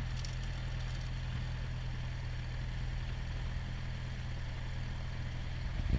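Cessna 172P's four-cylinder Lycoming engine and propeller running steadily at low power, a constant low drone heard from inside the cabin. There is a brief thump near the end.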